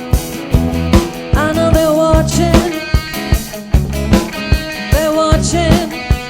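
Live rock band playing a song with a singer, a steady drum-kit beat and bass.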